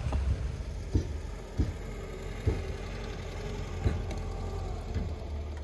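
The engine of a white Lada 2107 sedan runs steadily at low revs. A few dull knocks come through at uneven intervals.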